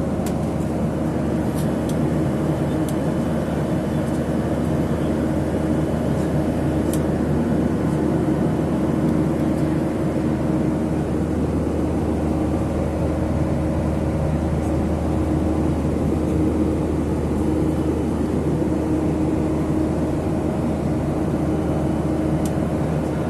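Steady drone of a jet airliner's cabin noise, engines and air system running, with a few constant low hums and no change throughout.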